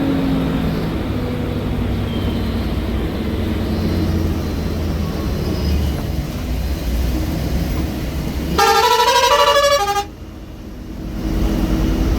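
Ashok Leyland BSVI diesel engine of a 12 m sleeper bus running under way, heard from the cabin. Near the end a musical horn plays several changing notes for about a second and a half, after which the sound briefly drops before the engine noise returns.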